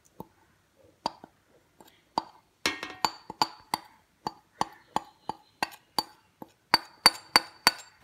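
Metal spoon knocking and scraping against the rims of a glass bowl and a steel mixer jar while flour is knocked into the jar. A few scattered clinks at first, then a steady run of sharp ringing taps, about three a second.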